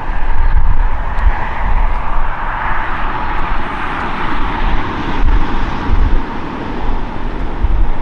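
Embraer E190's twin turbofan engines at takeoff power, a steady jet roar that swells a few seconds in as the jet accelerates down the runway. Gusty wind buffets the microphone with a low rumble throughout.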